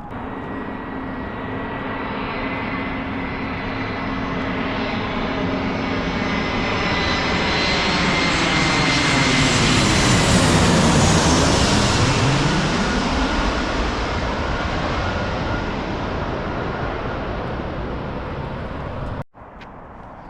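Jet airliner flying low overhead: the engine noise builds, peaks about halfway with a steady high whine from the engine fans, then fades as it moves away. The sound cuts off suddenly about a second before the end.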